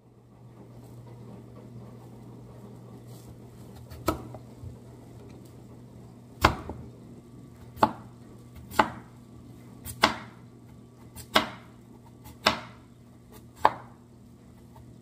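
Crinkle-cut knife chopping a russet potato into fries on a wooden cutting board: eight sharp chops, the first about four seconds in, then roughly one every second, over a steady low hum.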